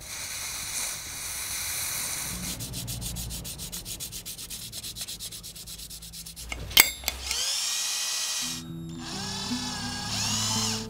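Sandpaper rubbing on a brass spoon-lure blade, first as a steady scrape and then in quick even strokes. Then a drill whirs, speeding up and slowing down in two spells as it works the blade. Guitar music comes in under the drill near the end.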